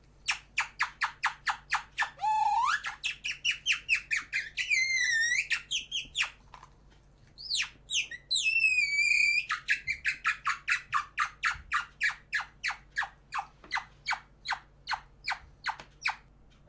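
Artistic human whistling imitating birdsong: rapid runs of short chirping notes, about five a second, broken by a few long sliding whistled notes.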